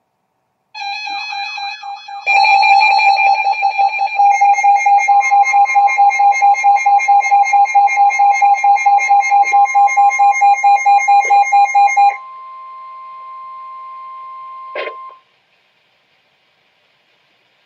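Weather radio alert: a loud electronic alarm beeping in rapid pulses, joined about five seconds in by the steady NOAA Weather Radio warning alarm tone. The beeping stops about twelve seconds in and the steady tone runs on more quietly, cutting off with a click about fifteen seconds in.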